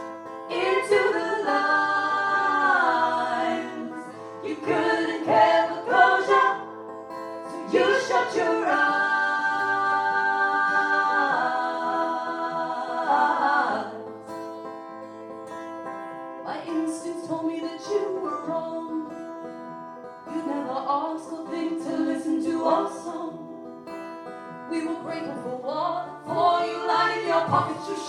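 Live folk song: voices singing over plucked acoustic guitar, full for the first half, easing into a quieter stretch and building again near the end.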